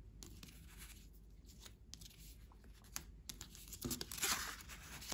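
Paper and packaging rustling, with light clicks and taps, as gift items are handled on a wooden table; a louder rustle comes about four seconds in.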